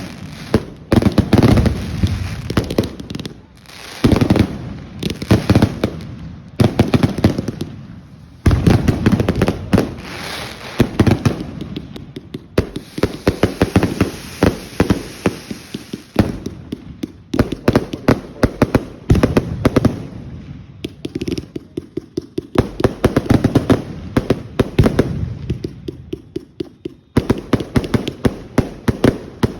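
Fireworks going off in rapid volleys of sharp bangs and crackles, many per second, each volley lasting a few seconds with short lulls between.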